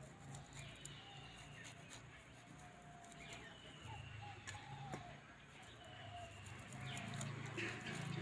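Soft rasping of boiled potato rubbed on a small metal hand grater over a steel plate, with a few faint clicks of the grater. Birds call in the background.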